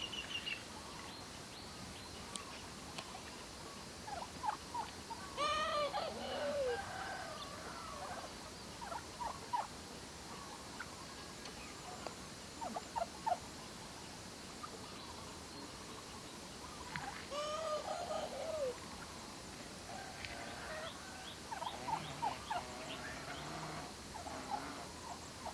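Domestic turkeys calling. A tom gobbles twice, about twelve seconds apart, each gobble a quick rattling run of notes. Short clucks and peeps come in scattered between the gobbles.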